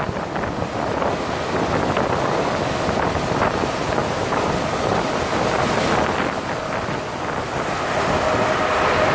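Wind rushing over the microphone on the open deck of a cruise ship under way, a steady rushing noise. Near the end a steady pitched hum comes in under it.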